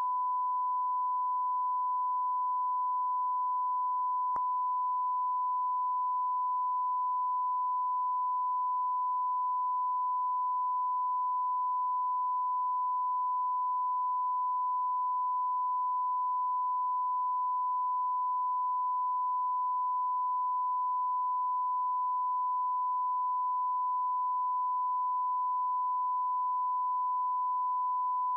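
Television off-air test tone: a single steady, unbroken beep at one pitch, the line-up tone broadcast with colour bars when a station is off the air. A faint click about four seconds in.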